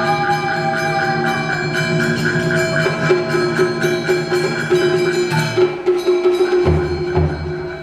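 Traditional Vietnamese music accompanying a water puppet show: sustained melodic tones over a fast, steady clicking percussion, with a few low drum strokes near the end.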